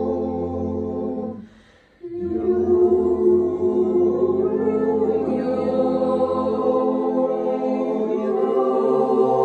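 A group of beginner yodel students singing a cappella in several voices, holding long chords. The singing stops about a second and a half in for a short breath, then starts again.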